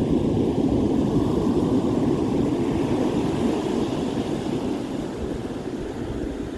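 Ocean surf washing on the beach, a steady rushing noise that slowly fades away.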